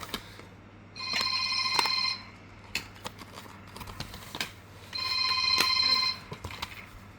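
Telephone ringing with an electronic trilled ring: two rings, each about a second long, about four seconds apart.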